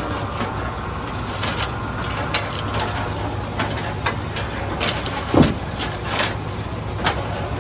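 Brunswick A-2 bowling pinsetter cycling: a steady low motor hum with scattered clanks and clicks as the pin deck and sweep move and pins are handled. The loudest knock comes about five seconds in.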